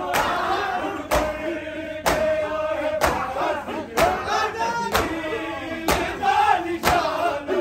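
A group of men chanting a noha together. Their matam chest-beating lands in unison as sharp slaps about once a second.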